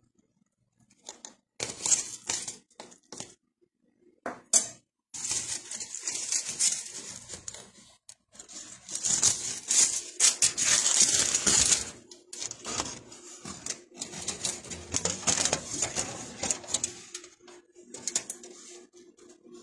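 Aluminium foil trays and foil being handled, making crinkling, rattling and metallic clinks off and on. The noise is busiest about halfway through.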